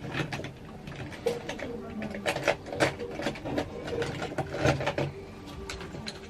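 Irregular run of quick clicks and taps from small hard objects being handled, thickest in the middle, over a faint background hum.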